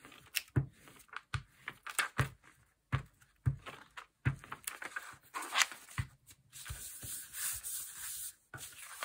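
Glue stick rubbed in short strokes across a sheet of old book paper, with scattered light knocks and paper rustles. From about six seconds in comes a steadier hiss of hands smoothing the glued paper flat.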